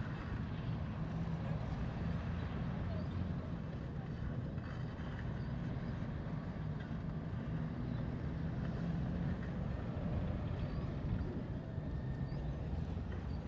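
Merkava tank's diesel engine running steadily at low revs, a low-pitched drone.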